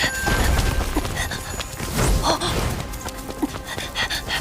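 Action-scene soundtrack: background music under a quick run of short knocks and hits, with a low rumble underneath.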